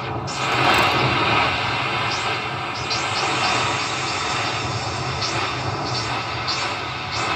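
Novation MiniNova synthesizer playing a noise-based patch: a steady hiss over a low drone, with short falling sweeps recurring about once a second, sounding like a jet engine.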